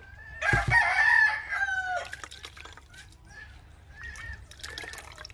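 A rooster crows once, starting about half a second in and lasting about a second and a half, its call dropping in pitch at the end; a few short, faint calls follow.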